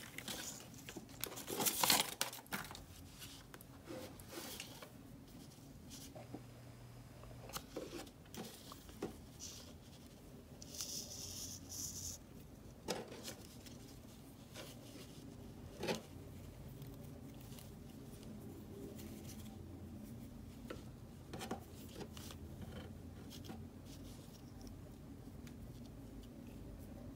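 Faint handling noises as yarn is tied onto a paper cut-out on a wooden craft stick: rustling of paper and yarn with scattered light taps and clicks, loudest about two seconds in.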